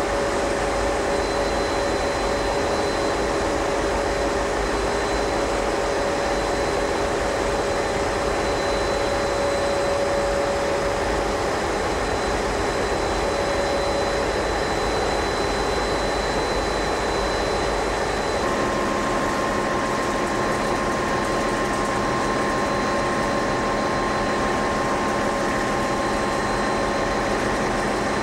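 Steady, loud din of a ship's engine room: a large inline marine diesel engine and its machinery running, with several steady tones over a dense noise. About two-thirds of the way through the mix of tones shifts and a new steady tone comes in.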